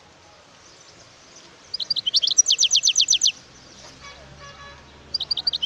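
European goldfinch singing. About two seconds in, a few quick notes run into a fast series of about ten sharp, down-slurred notes, and the same phrase starts again near the end.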